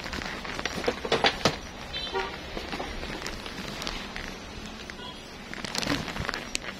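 Shop background noise with scattered knocks and rustles, the loudest about a second in, and a short falling chirp about two seconds in.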